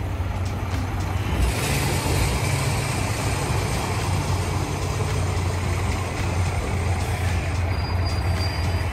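JR Shikoku diesel railcar pulling into the platform and braking to a stop, with a steady low engine rumble. A hiss of brakes and wheels starts about a second and a half in and lasts several seconds, then a short high squeal comes near the end as the train halts.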